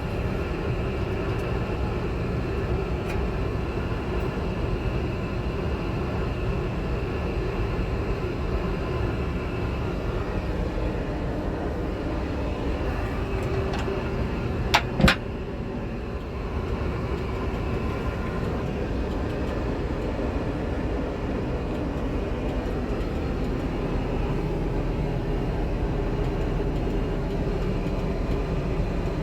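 Steady rumble of cabin noise in an Airbus A380 airliner in flight. Two sharp knocks come about halfway through.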